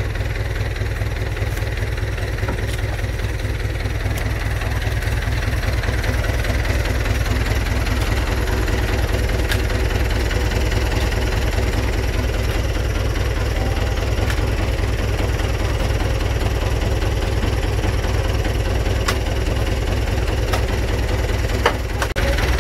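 Belarus 892 Turbo tractor's four-cylinder turbo diesel running with a steady low throb, a little louder after a few seconds, as the tractor works through deep mud. A few sharp clicks, and one louder knock near the end.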